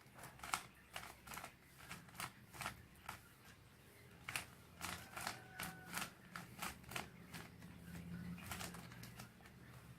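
Rubik's cube layers being turned by hand: a string of light plastic clicks and clacks, about two a second, as a last-layer algorithm is run through on the cube.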